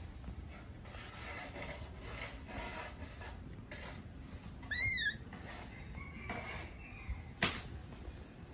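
Baby macaque giving one short, high coo that rises and falls, about five seconds in. A sharp click or knock follows a couple of seconds later.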